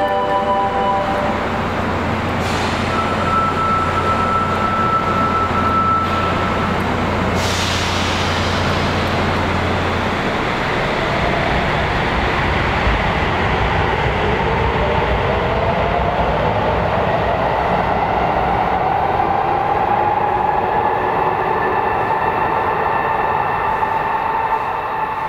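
Sendai Subway Namboku Line train pulling out of the station. Two sharp air hisses come in the first several seconds, then the electric motors' whine rises steadily in pitch as the train accelerates away.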